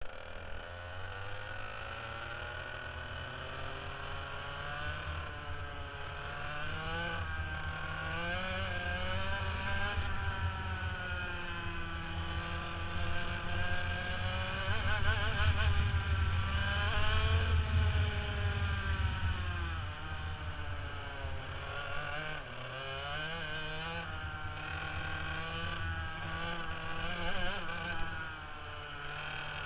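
Go-kart engine running hard on a lap, its pitch rising and falling over and over as it accelerates out of corners and backs off into the next.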